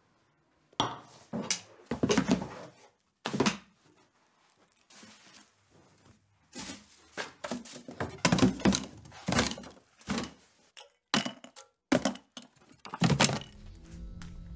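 Objects being handled and set down on hard surfaces: a run of thunks, knocks and rustles, among them a picture frame being picked up. Low music fades in at the very end.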